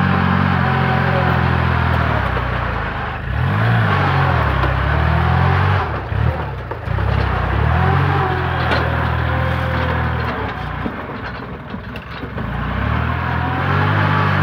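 Kubota compact tractor's diesel engine running hard while the tractor pushes soil with its front blade, the engine note dipping and recovering a few times.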